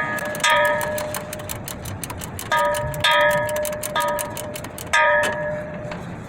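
A ratchet wrench clicking rapidly as it tightens the parking brake cable adjuster nut. About five sharp metallic rings cut in along the way, each fading out within a second.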